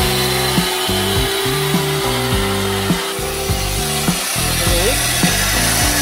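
Background music with a steady bass line, over a continuous hiss from a hose feeding the welded aluminium fuel tank for a leak test.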